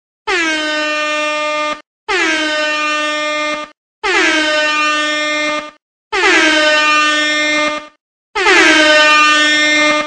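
Club air horn sound effect blasting five times, each blast about a second and a half long, dipping in pitch at the start and then holding one tone. Each blast is the same sample stacked in many more copies than the last, so the blasts grow louder and thicker.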